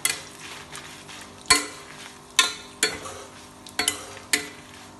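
Steel spatula scraping and knocking against an iron kadai as dried red chillies and curry leaves are stirred while frying in a little oil, over a faint steady sizzle. About six sharp scrapes, irregularly spaced, the loudest about a second and a half in.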